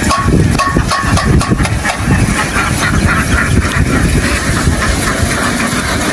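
A large flock of ducks quacking all together over a steadily running engine.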